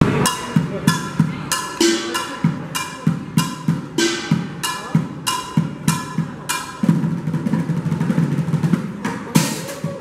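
Street drummer playing upturned plastic buckets, a plastic water jug and metal pots with drumsticks in a steady beat. Some strikes ring on after the hit, and the low bucket hits come thicker from about two thirds of the way in.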